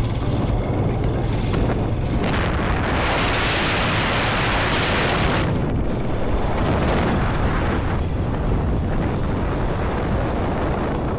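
Motorcycle engine running while riding, with wind rushing over the microphone; the rush grows much louder about two seconds in for some three seconds, then eases back.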